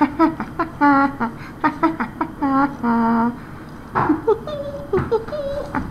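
A young person's voice humming a wordless tune in short, quick notes, with one longer held note about three seconds in, then softer sliding notes.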